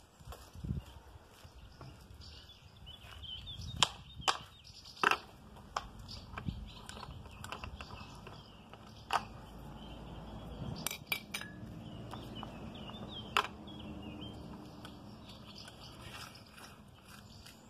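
STIHL 46-2 trimmer head's plastic housing being handled and fitted onto the brush cutter's gearbox shaft: scattered sharp clicks and knocks of plastic against metal. The loudest come about four and five seconds in, with a quick run of clicks near eleven seconds.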